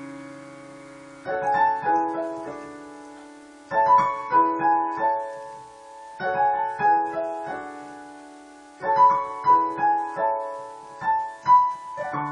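Dynatone DPR-3160 digital piano played slowly in a dreamy style: a held chord fades, then four phrases of notes, each struck group ringing and dying away before the next begins about every two and a half seconds.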